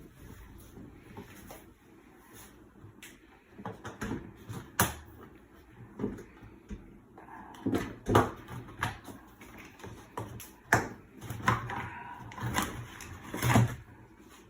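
Irregular clacks and knocks of hands handling and working loose plastic washing-machine parts, with a brief squeak partway through.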